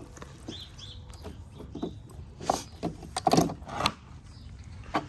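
Scattered clicks and knocks of tools and parts being handled, irregular and a second or so apart, over a low steady background.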